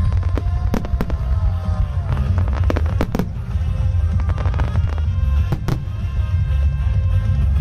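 Starmine fireworks barrage: a rapid run of sharp shell bursts and crackles over a continuous low rumble of booms.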